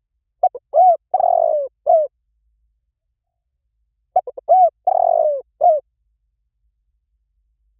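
Spotted dove cooing: two matching phrases about four seconds apart. Each phrase is a couple of quick short notes, one longer note and a closing note.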